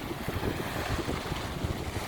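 Sea waves washing onto a beach, with wind buffeting the microphone as a low rumble.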